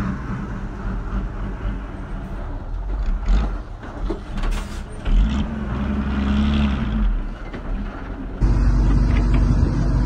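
Heavy diesel engine of earthmoving machinery running steadily, pushing sand. Its note swells between about five and seven seconds in, and the sound gets suddenly louder and fuller about eight and a half seconds in.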